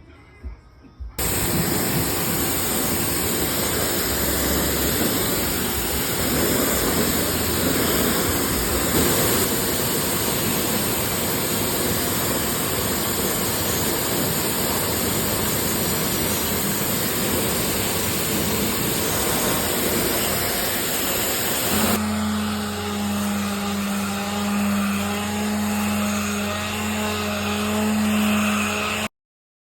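Pressure washer spraying a jet of water across wooden deck boards, a loud steady hiss of spray. About 22 seconds in it changes to a hand sander's motor humming steadily on the wood, which cuts off suddenly near the end.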